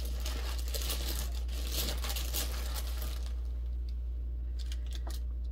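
Hand rummaging in a bag of small zodiac charms: dense crinkling and rustling for about three seconds, then a few scattered clicks, over a steady low hum.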